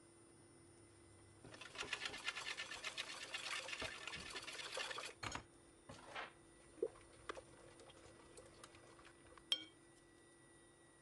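Yeasted crepe batter sizzling and crackling in a hot pan: a faint burst of rapid fine crackle starting about a second and a half in and stopping short about three and a half seconds later, followed by a few scattered pops and clicks.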